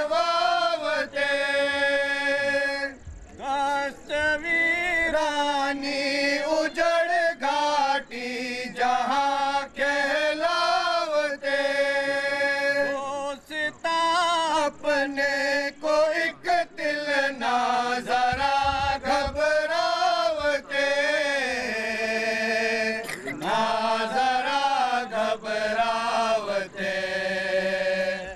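Naat, Islamic devotional verse, chanted in long held phrases that bend up and down in pitch, with short pauses for breath between them.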